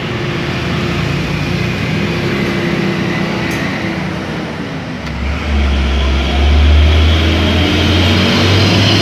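A motor vehicle engine running, a steady drone that grows louder and rises a little in pitch about five seconds in.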